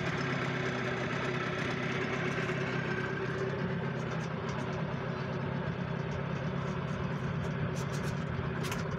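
Boat engine running steadily, an even mechanical hum.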